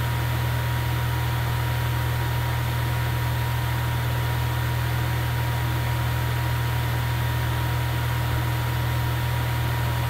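A steady low hum with an even hiss and a faint constant high tone, unchanging throughout.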